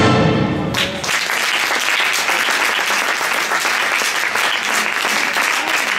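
The last notes of orchestral routine music stop under a second in, then an audience applauds steadily.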